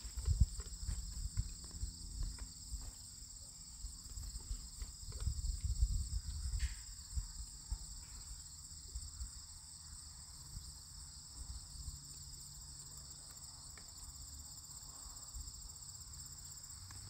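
A steady, high chirring of insects in the summer grass runs throughout. During the first several seconds it is overlaid by uneven low thumps and rumble, which die away after that.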